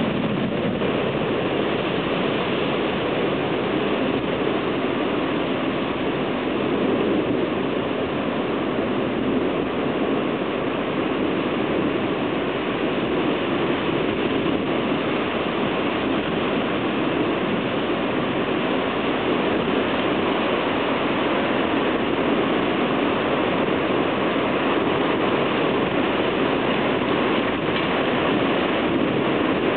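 Heavy thunderstorm downpour: rain pouring down hard and without let-up, a dense, even hiss.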